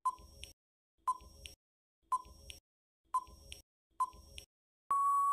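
Countdown-timer sound effect: five short beeping ticks about a second apart, then a steady electronic beep of about a second as the timer runs out.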